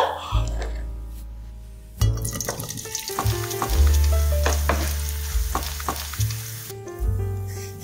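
Cubed sausage sizzling in hot oil in a non-stick frying pan while a spatula stirs it, with sharp clicks of the spatula against the pan. The sizzle starts about two seconds in and drops away near the end. At the start a knife chops through sausage on a wooden cutting board.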